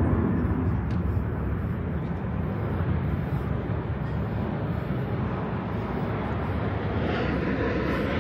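Steady low rumble of a jet airliner passing overhead.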